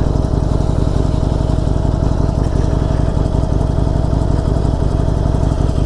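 Harley-Davidson Forty-Eight's 1200 cc air-cooled V-twin engine running steadily under way, at an even speed with no revving.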